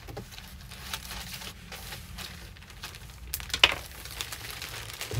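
Faint rustling and crinkling of clothing and packaging being handled, with a few light clicks; the sharpest click comes about three and a half seconds in.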